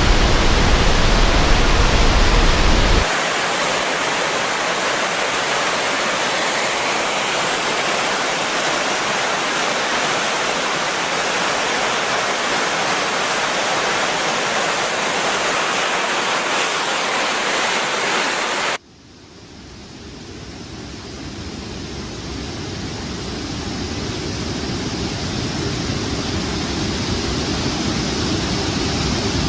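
Water released through a dam rushing and falling in a steady, loud noise. It changes abruptly about 3 s in, then cuts off near 19 s and builds back up as a lower rumble.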